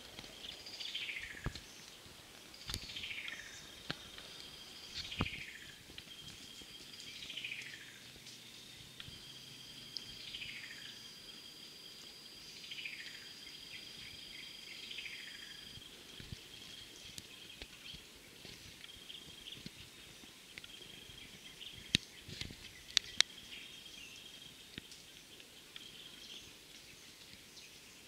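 Rainforest birdsong and insects: a bird repeats a falling whistled note roughly every two seconds through the first half, over thin, steady high tones that break up later. A few sharp cracks come about two-thirds of the way through.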